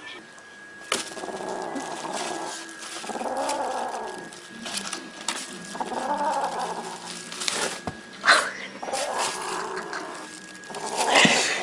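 A pet animal growling in drawn-out calls, each about a second long, about five in a row. Behind them are a few sharp knocks and a faint steady high whine.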